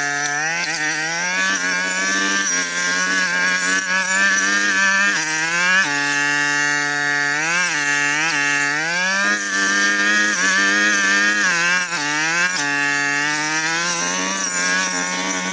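Brush cutter engine running hard while cutting overgrown brush, its pitch sagging and climbing back several times as the blade takes and sheds load.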